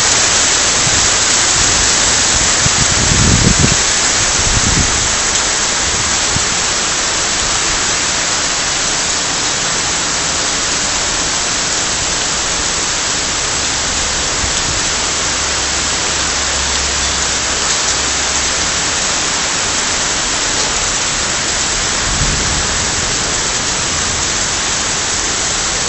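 Heavy downpour: a loud, steady hiss of rain pouring onto the street, cars and trees. Low rumbles come through a few seconds in and again near the end.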